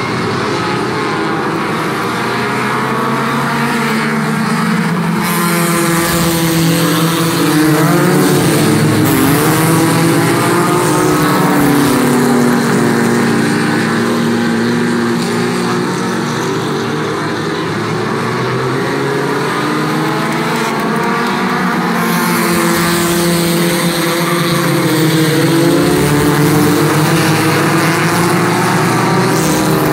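A pack of scrambler-class compact race cars running laps on a paved oval, several engines revving up and down over one another. It swells louder twice as the pack comes around.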